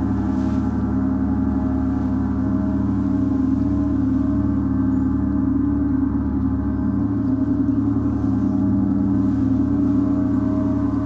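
Symphonic gong sounding in a steady, sustained wash of many overlapping overtones, with no new strike.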